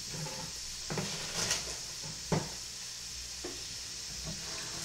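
Shrimp sizzling in a frying pan, a steady hiss, with a few knocks and clatters of utensils or cookware; the sharpest comes a little over two seconds in.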